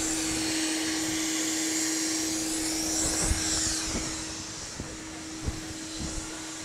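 A machine running: a steady rush of air over a constant low hum. The rush eases off after about three and a half seconds, and a few soft knocks follow.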